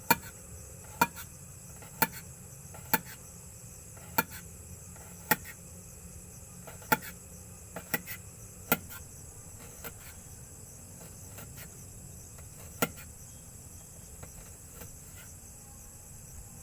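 Crickets chirring steadily, with sharp knocks of kitchen utensils during cooking prep: about one a second for the first nine seconds, then a single knock near the thirteenth second.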